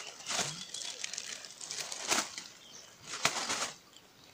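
Rustling and flapping handling noises, three short louder ones about a second apart, the last the loudest, fading out near the end.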